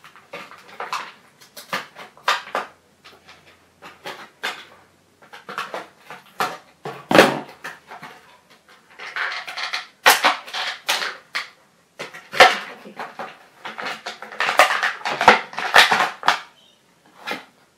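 Clear plastic toy packaging crinkling and rustling as it is cut open with scissors and handled close to the microphone: irregular sharp crackles with louder bursts of rustling.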